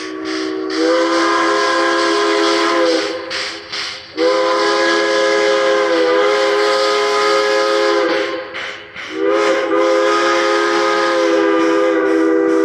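Baldwin 26 steam locomotive's Central Railroad of New Jersey three-chime steam whistle blowing three long blasts, each a chord of several steady tones. The last blast is still sounding at the end.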